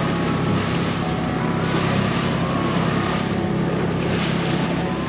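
A RIB's outboard engine running steadily, with wind buffeting the microphone.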